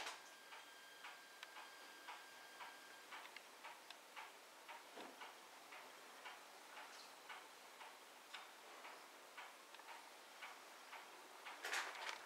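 Faint, regular ticking, about two to three sharp ticks a second.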